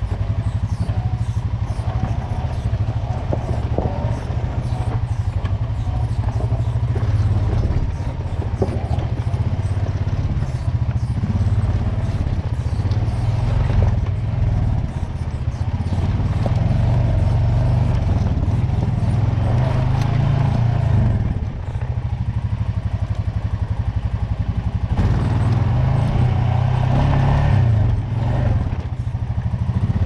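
Off-road vehicle engine running steadily at low speed while crawling over a rocky trail, the throttle easing off briefly a few times, with clatter from the rough ground.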